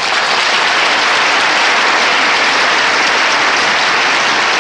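Studio audience applauding, a dense, steady clapping that breaks out suddenly just before and holds at full strength.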